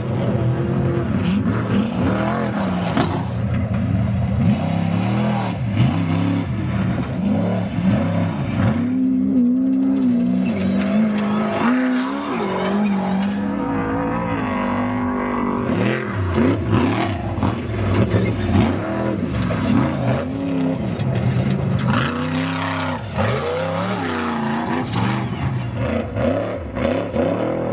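Off-road desert race trucks and buggies driving hard, their engines revving up and down over and over as they go by.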